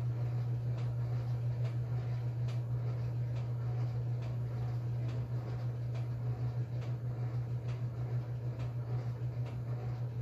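1957 Blackstone 350 automatic washer running mid-cycle with a steady low motor hum and a light tick roughly once a second, while the tub and agitator stand still.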